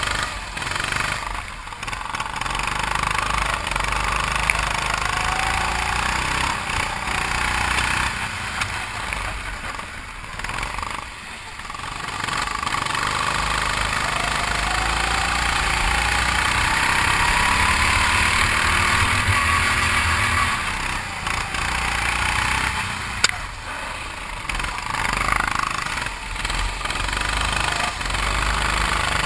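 A 270 cc, 9 hp go-kart engine running under load, its pitch climbing in long rising sweeps as the kart accelerates and dropping away when the throttle is lifted, around eleven seconds in and again near twenty-three seconds.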